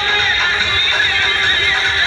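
Loud music blaring from a procession's truck-mounted horn loudspeakers, with a wavering high melody line over it.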